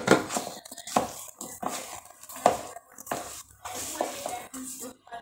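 Hands mixing and squeezing sticky wheat-flour dough in a plastic bowl as water is worked in: irregular squelches and knocks against the bowl.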